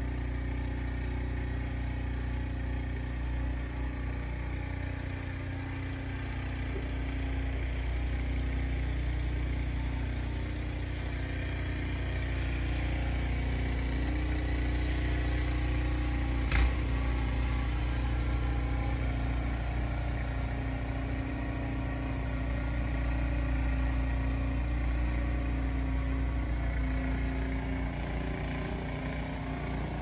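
Snowblower engine running steadily, swelling a little now and then, with a single sharp click about halfway through.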